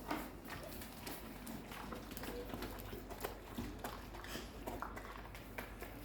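Husky puppies and their mother eating, irregular small wet smacks and clicks.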